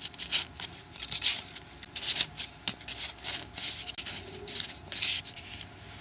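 Folded paper units of a 3D modular origami model rustling and crinkling in irregular short bursts as fingers bend and shape them.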